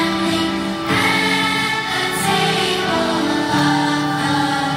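Large children's choir singing a hymn, holding notes that change pitch about once a second.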